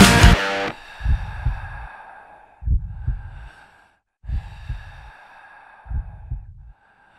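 Music cuts off about half a second in, then a person breathes heavily, one hard breath roughly every second and a half, each with a low thump at its start, like a tired cyclist after a climb.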